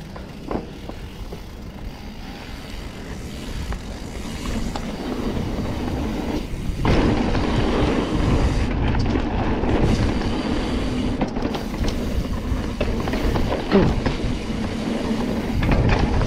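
Mountain bike rolling fast down a rough, rooty trail: tyres on dirt and the bike rattling over bumps. The noise gets louder about seven seconds in.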